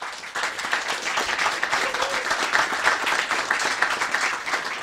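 Audience applauding: a crowd clapping densely together, starting abruptly.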